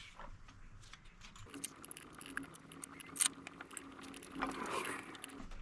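Faint scattered clicks and light metallic rattling from small parts being handled, with a louder cluster of clicks about three seconds in.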